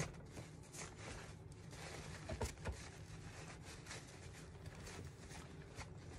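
Faint rustling and crinkling of a paper towel rubbed over a painted robin figurine, wiping back the paint, with a couple of small knocks about two and a half seconds in.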